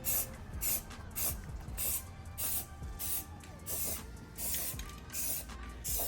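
Aerosol can of aluminium-look spray paint hissing in short bursts, roughly ten of them, one after another, as a second coat goes onto an exhaust header heat shield.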